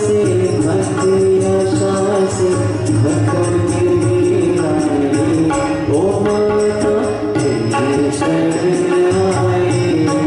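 Live bhajan music: a man singing with harmonium and tabla accompaniment, the tabla keeping a steady rhythm under the melody.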